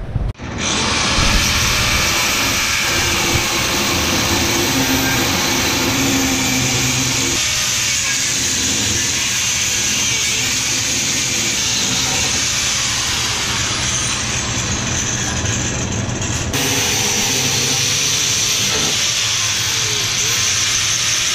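Angle grinder cutting through a metal shifter bracket: a loud, steady grinding hiss that starts about a second in and runs on, changing slightly in tone about three-quarters of the way through.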